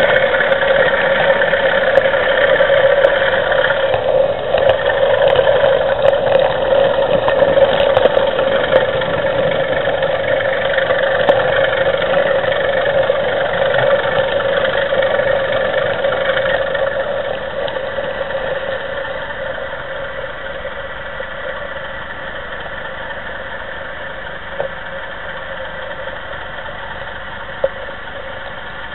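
Diesel engine sound from the DCC sound decoder of an OO gauge model diesel locomotive, played through its small onboard speaker, running steadily along with the model train's running noise on the track. It drops to a quieter level about two-thirds of the way through.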